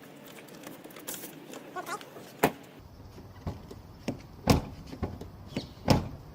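About six sharp clicks and knocks from a GM truck's exterior door handle and lock mechanism being worked by hand, the loudest two near the middle and near the end.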